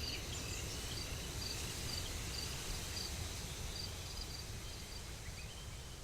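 Nature ambience of crickets chirping in short, evenly repeated high chirps, about two a second, over a low steady rumble that slowly fades.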